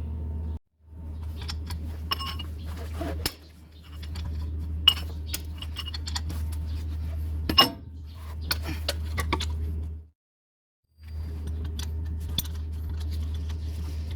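Metal hand tools clinking and tapping on engine parts, with a couple of louder sharp knocks, over a steady low hum. The sound cuts out twice.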